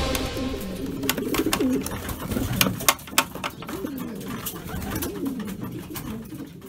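Racing pigeons cooing in a wooden loft: several low coos that rise and fall, mixed with a scatter of sharp taps and wing flutters.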